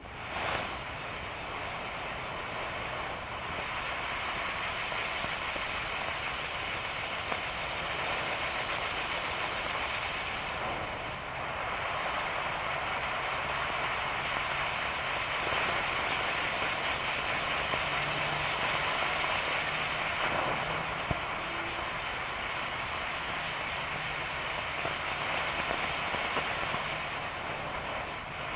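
Black Cat Turbo Wheel firework spinning and spraying sparks: the steady, loud hiss of its burning drivers, which catches just after the start and dips briefly twice early on. One sharp crack about two-thirds of the way through.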